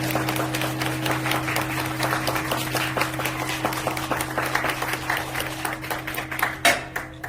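Audience applauding, a dense patter of clapping over a steady low hum, with one loud knock near the end before the sound cuts off abruptly.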